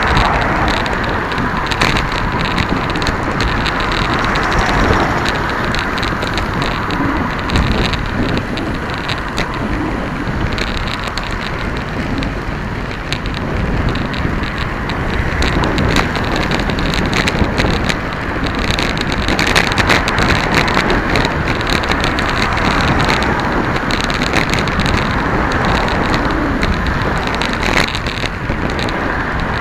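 Steady wind and road noise on a bicycle-mounted camera's microphone while riding along a road, with frequent small knocks and rattles from the mount over bumps in the surface.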